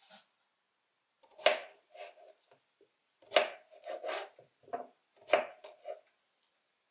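Knife slicing a zucchini into rounds on a plastic cutting board: several unhurried cuts, each a short crisp chop against the board.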